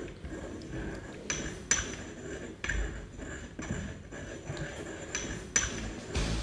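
Ceramic pestle grinding potassium permanganate crystals in a ceramic mortar: a gritty scrape with irregular sharp clinks of the pestle against the bowl.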